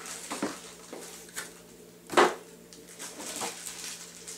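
Camcorder accessories in plastic bags being handled and rummaged through: intermittent crinkling and rustling, with one louder crinkle or knock about two seconds in.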